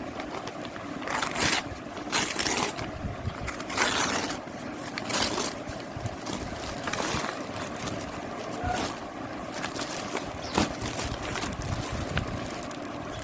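Packaging being handled and opened, rustling and crinkling in short spells every second or two over a steady background hum.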